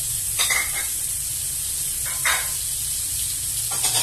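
Food frying in hot oil in a pan, sizzling steadily, with three short, louder noises about half a second in, a little after two seconds, and near the end.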